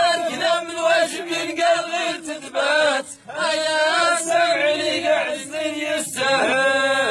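Unaccompanied male singing in a chanted style, with long held, wavering notes.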